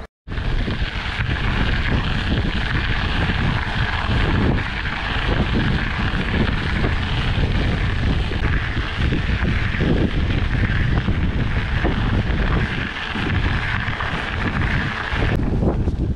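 Wind buffeting the microphone over the rumble of a Trek Stache 29+ hardtail's tyres on dirt singletrack while it is ridden. A steady high-pitched hum runs underneath and cuts off near the end.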